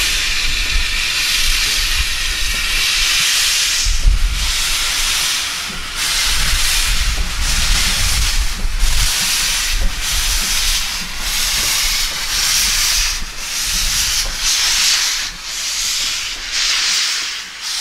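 GWR 4500 class small prairie tank engine 4555 moving off with its cylinder drain cocks open. A loud, steady hiss of steam breaks about six seconds in into rhythmic chuffs a little under a second apart.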